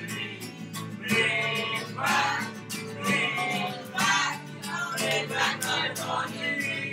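Background song: acoustic guitar strumming with a singing voice.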